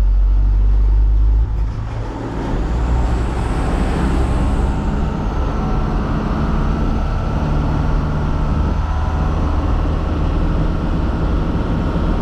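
Truck engine running steadily with road noise while driving. The sound changes abruptly about a second and a half in, from a heavy low rumble to a steadier engine hum.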